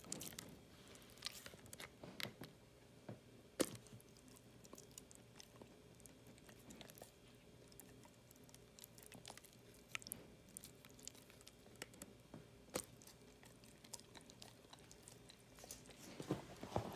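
Weimaraner chewing and biting on a plastic dental floss pick: faint, irregular crunches and clicks of teeth on plastic, with one sharper click about three and a half seconds in and a quick run of them near the end.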